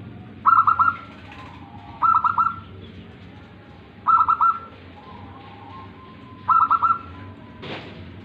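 Zebra dove cooing: four repeated song phrases about two seconds apart. Each phrase is a quick run of three or four notes followed by a softer, drawn-out note.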